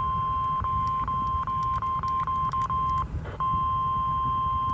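Emergency Alert System attention tone, the single steady NWS warning alarm tone of about 1050 Hz, heard over FM radio ahead of a severe thunderstorm warning. It is broken by several brief dropouts and one short gap about three seconds in, over a low rumble.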